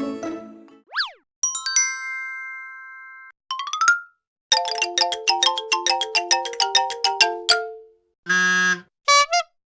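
A rapid string of short cartoon-style sound effects from a sound-effects library, separated by brief gaps: a quick up-and-down pitch sweep, a bell-like ding, a short rising blip, a fast run of plinking notes, a harsh buzzer tone, and a few warbling blips near the end.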